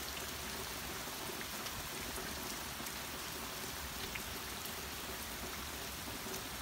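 Heavy rain falling steadily: an even hiss with faint scattered drop ticks.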